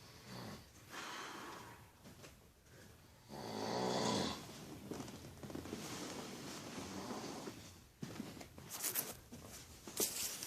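Loud snoring. The biggest snore comes a little over three seconds in, followed by a long noisy breath, with a few sharp clicks near the end.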